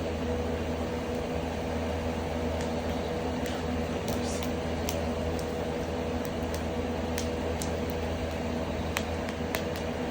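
Ceiling extractor fan running with a loud, steady hum as it draws smoke off a wood fire. Faint sharp crackles from the burning firewood pop through now and then, about ten in all.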